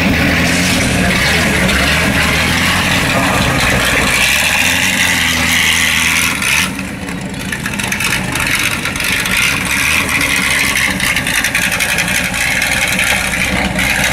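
Ford GT40 Mk II's 427 V8 running stationary, loud and steady, with a brief dip in level about halfway through.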